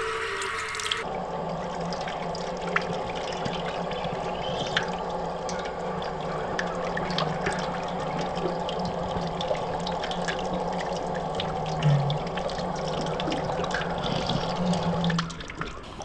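Drinking-fountain bubbler jet running steadily and splashing onto the stainless-steel grate basin, with small drips and ticks of water. The audio is slowed down along with the picture.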